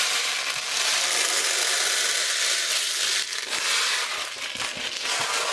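Plastic airsoft BBs being poured into a 3D-printed speedloader: a dense, continuous rattle of many small pellets, thinning briefly a little after three seconds in.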